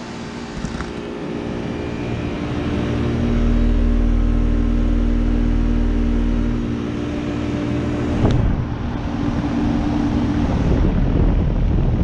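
2007 Carrier Comfort Series 3.5-ton heat pump outdoor unit running in heat mode: the steady hum of its scroll compressor, which wears a sound blanket, together with the rush of its GE-motor condenser fan. A deep rumble of wind on the microphone comes and goes, and there is a single sharp knock a little past eight seconds.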